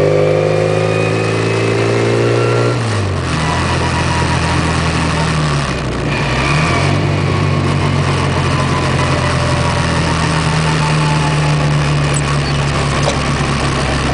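A Mini's four-cylinder engine under way on the track, heard from inside the car. The revs creep up, drop sharply about three seconds in, dip briefly again around six seconds, then hold steady.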